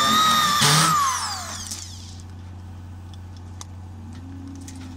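Handheld power drill driving a screw into a galvanized sheet-metal duct: the motor whines up to speed, there is a brief grinding burst as the screw goes into the metal, then it spins down over about a second. The drill starts again at the very end.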